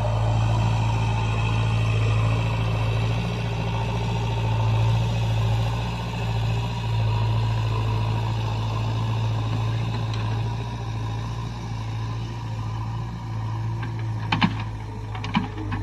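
JCB backhoe loader's diesel engine running steadily, with two sharp metallic clanks near the end.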